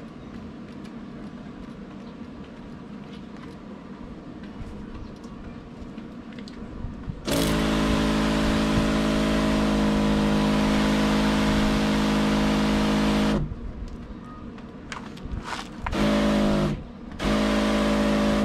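The electric pump of a Kawasaki 2-in-1 battery knapsack sprayer hums steadily while water hisses out of the lance nozzle. After a few seconds of quiet handling clicks, it sprays for about six seconds, stops, then gives two shorter bursts near the end.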